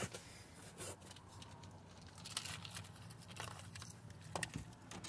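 Quiet truck cab with the engine off: a faint low hum, and a few soft clicks and rustles from the phone being handled and moved around the steering wheel.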